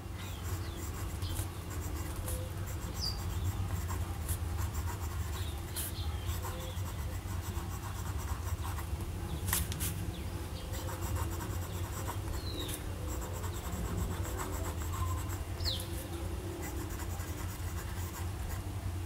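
Parker IM's medium steel fountain-pen nib scratching lightly across Rhodia dot-pad paper as cursive words are written, with a few small clicks. A steady low hum runs underneath.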